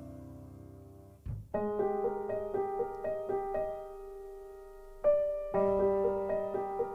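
Background piano music: a held chord fades out, then a light melody of single piano notes plays, pausing briefly and picking up again near the end.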